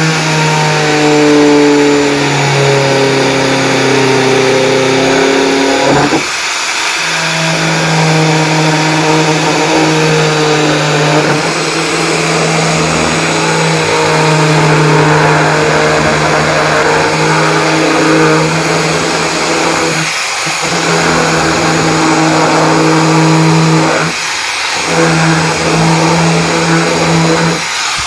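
Electric grinder fitted with a hole-cutting bit, running steadily as it cuts a hole through the wall of a plastic water tank, its pitch sagging as the bit takes load. The motor sound breaks off briefly about six seconds in and twice more near the end.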